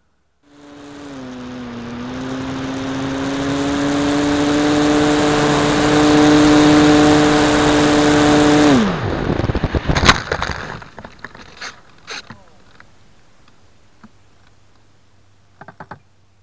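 RC plane's motor and propeller heard through its onboard camera: a steady tone over rushing wind that swells as it flies. Just before nine seconds in, the motor note falls away abruptly. A sharp crack and a spatter of snapping and rustling follow as the plane crashes into a tree's branches, then only a faint low hum.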